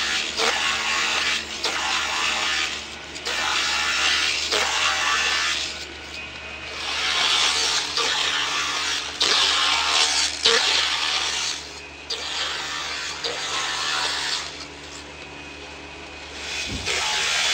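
Small multi-blade gang rip saw slicing painted wooden boards into ruler strips. The cutting noise comes in repeated passes, each a second or two long, over the steady hum of the running machine.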